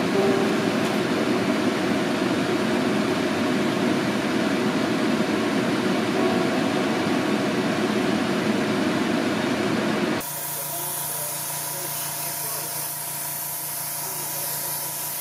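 Airbrush spraying paint, a steady rushing noise. About ten seconds in the sound cuts abruptly to a quieter, thinner hiss over a steady low hum.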